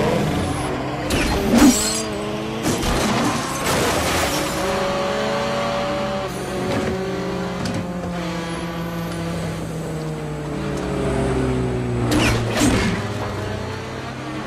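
Several car engines running at speed, their pitch rising and falling as they rev and pass, over a steady low engine drone. There are sudden loud hits about a second and a half in, at about four seconds, and again near the end.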